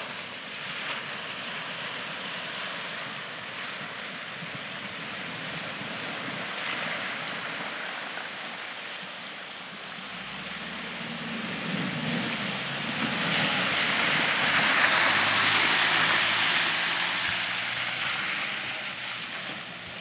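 Rushing river water, joined about ten seconds in by a Nissan Navara's engine as the ute fords the river and comes up close, its wheels splashing through the shallows; the splashing and engine are loudest about fifteen seconds in, then ease off.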